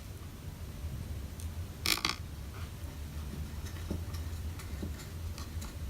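Small clicks and ticks of a precision screwdriver driving a tiny screw back into a MacBook Pro's case, with one louder click about two seconds in.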